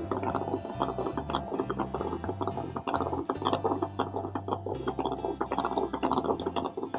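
Electric hand mixer whipping cream in a glass bowl, the beaters clicking and clinking against the bowl, under background music with a bass line stepping from note to note.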